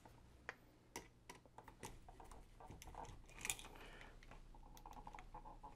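Faint scattered clicks and light handling noise from a plastic wall switch and a copper wire being handled while the wire is hooked onto the switch's screw terminal.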